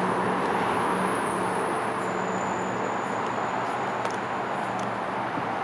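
Steady noise of road traffic, an even continuous wash of sound with a low hum running through it.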